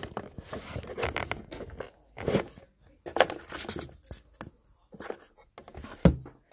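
Phone handling noise: fingers and fabric rubbing and bumping against the phone's microphone in a run of irregular rustles and knocks, with a loud knock about six seconds in.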